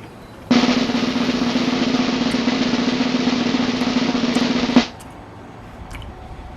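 Snare drum roll sound effect lasting about four seconds, starting sharply half a second in and cutting off suddenly.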